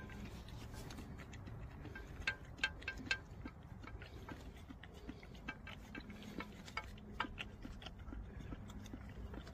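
Puppies and an adult dog lapping milk from a shallow pan: quick, irregular wet clicks and tongue taps, some coming in short rapid runs.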